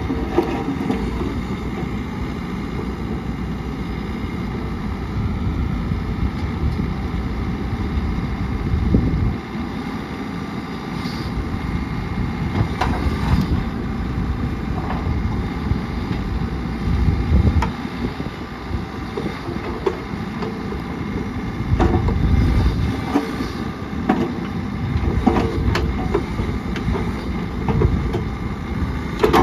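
2016 Bobcat E55 mini excavator's diesel engine running under hydraulic load as the boom, arm and bucket are worked, its loudness swelling and easing with each movement. Occasional short metallic knocks come from the moving attachment.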